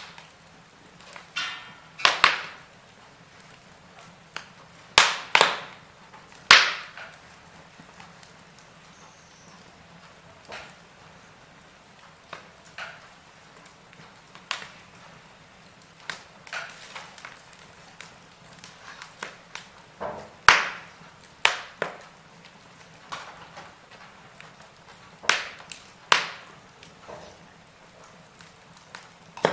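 Wood fire in a fireplace crackling, with irregular sharp pops: a few loud snaps and many softer ticks, scattered every second or so over a faint steady hiss.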